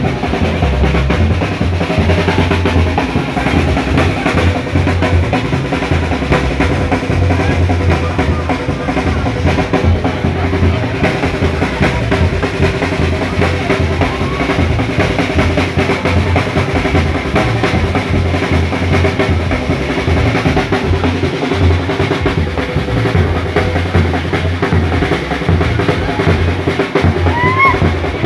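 Bass drum and snare drum played live, drumming that runs on without a break.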